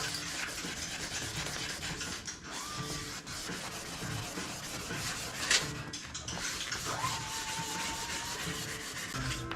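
Steady rubbing and scraping, with one sharp click about five and a half seconds in and a short steady tone about a second and a half later.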